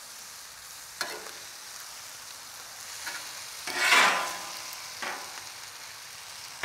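Fried rice with meat and vegetables sizzling on a Camp Chef flat-top griddle as metal spatulas stir and turn it. There is a sharp spatula click about a second in and a louder burst of sizzling and scraping around four seconds in.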